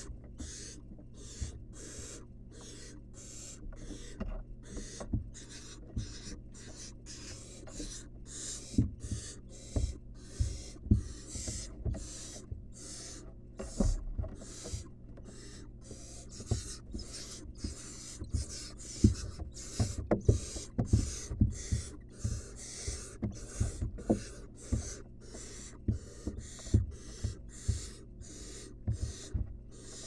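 Barn owl nestlings giving their rasping, snore-like begging hisses in a steady run, nearly two a second. Scattered thumps and scuffles come from the owlets moving about the wooden nest box while one swallows a rat.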